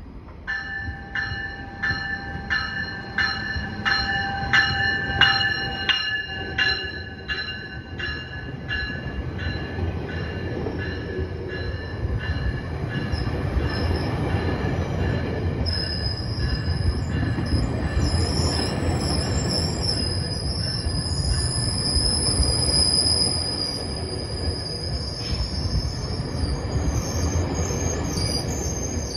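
GO Transit bilevel commuter train arriving at a station. For the first several seconds the leading cab car's bell rings about twice a second; then the double-deck coaches rumble past, and from about halfway on a high, steady squeal comes from the wheels as the train slows.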